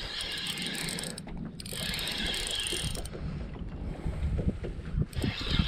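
Fishing reel being cranked in spurts to reel in a hooked fish under load, a fine whirring of the reel's gears, with wind rumbling on the microphone.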